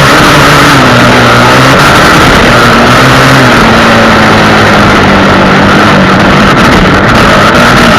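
Honda XR250 Tornado's single-cylinder four-stroke engine running under way, its note shifting in pitch with the throttle, dipping a little a few seconds in. It sits under a loud, constant rushing noise that overloads the recording.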